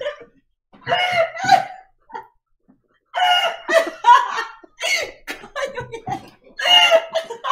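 People laughing hard in several bursts, some of it high-pitched, with a short lull about two seconds in.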